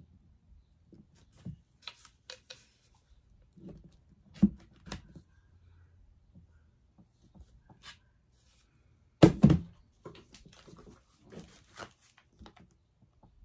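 A shadowbox frame and a picture board being handled on a tabletop: scattered light taps and knocks, with a louder double knock about nine seconds in.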